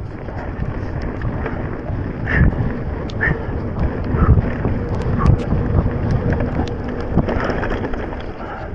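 Wind rushing over the microphone with the tyre noise and rattle of a Transition Spur mountain bike riding a trail at speed, broken by many short clicks and knocks.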